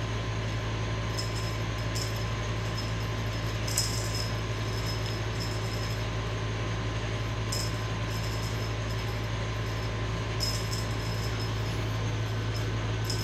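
Steady low electrical or appliance hum with a faint constant tone above it, and a few brief soft high-pitched rustles scattered through, about six times.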